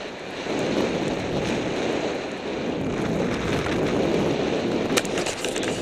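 Skis sliding through snow, with a steady rush of wind on the microphone, and a few sharp clicks near the end.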